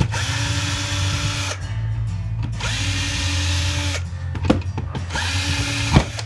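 Power drill/driver run in three bursts of about a second and a half, each spinning up with a rising whine and then running steadily, backing screws out of a soldering iron's housing. Short clicks fall between the bursts.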